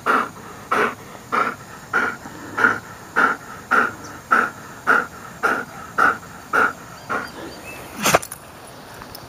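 Greyhound panting hard after running: steady, raspy open-mouthed breaths, a little under two a second, which stop about 7 seconds in. A single sharp knock follows about a second later.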